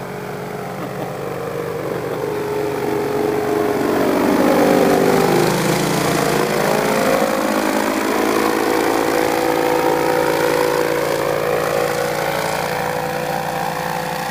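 Four-stroke Briggs & Stratton 16 HP engine and propeller of a paramotor trike flying past low overhead: the engine note grows louder, drops in pitch as the trike passes about five seconds in, then runs on steadily and fades slowly as it flies away.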